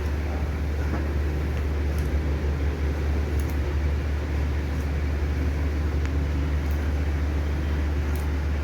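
A steady low hum throughout, with a few faint, sharp high ticks here and there.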